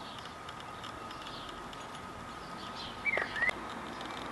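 Small birds chirping against a steady hiss of rain. A louder, sharper two-part bird call stands out about three seconds in.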